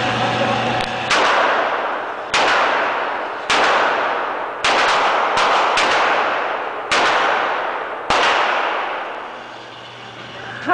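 .357 Magnum handgun being fired in a steady string of shots, about one a second, each shot followed by a long echo off the walls of an indoor range.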